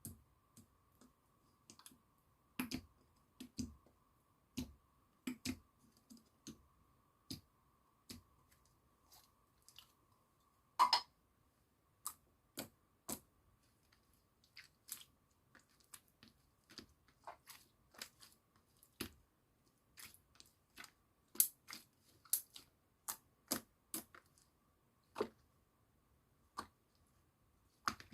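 Milky white slime being pressed and poked by hand, giving irregular small clicks and pops, with a few louder pops about eleven seconds in and again past twenty seconds.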